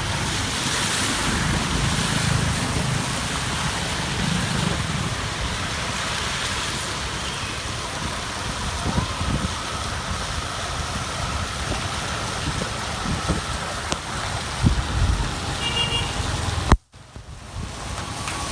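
Heavy rain with motor vehicles driving along a waterlogged road: a steady wash of rain and water noise under engine and tyre rumble. The sound cuts out abruptly for a moment near the end.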